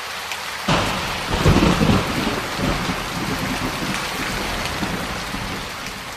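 Heavy rain with a thunderclap that breaks in suddenly under a second in and rumbles for about a second. The rain then carries on steadily, slowly fading toward the end.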